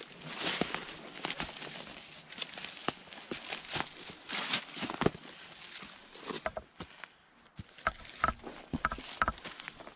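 Hiker's footsteps crunching through dry leaf litter, twigs and brush, with branches rustling against the body, in an uneven walking rhythm.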